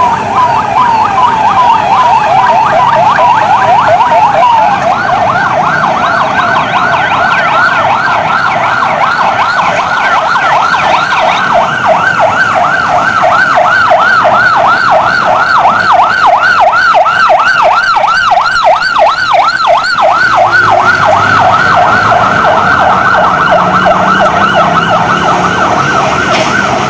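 Ambulance siren sounding continuously and loudly: for the first few seconds a rapidly repeating falling sweep, then about four seconds in it switches to a fast up-and-down electronic yelp of roughly four cycles a second.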